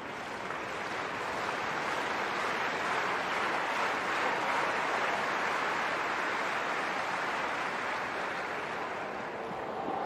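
Tennis crowd clapping while a Hawk-Eye line-call challenge is reviewed, growing louder over the first few seconds and easing a little near the end.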